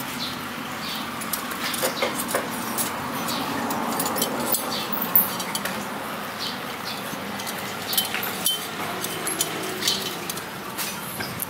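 Loose steel wire spokes clinking and rattling against one another, the hub and the rim as they are threaded in by hand to lace a motorcycle wheel. Irregular light metallic clicks.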